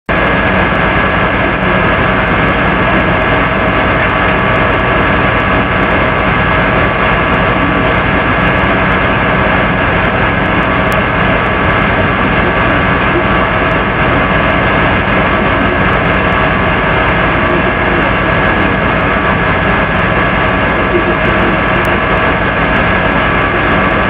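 Loud, steady electrical hum and hiss with several fixed tones running through it, unchanging throughout.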